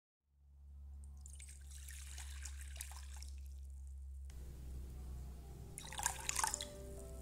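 Water pouring and splashing into a glass bowl for about three seconds from a second in, then milk poured in with a short, louder splash about six seconds in. A low steady hum runs underneath.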